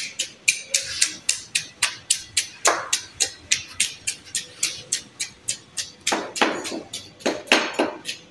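A knife scraping the scales off a large fresh fish in quick, regular strokes, about three or four a second, with a few longer scrapes in the second half.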